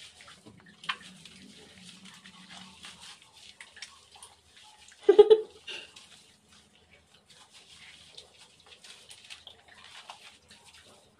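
Hands lathering shampoo into a wet Shih Tzu's coat, a faint wet squishing and crackling of soapy fur. About five seconds in there is one short, loud bark from the dog.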